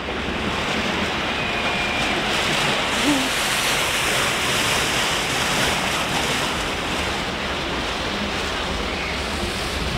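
Rushing water of a river rapids ride, a steady churning wash around the raft, with wind buffeting the microphone.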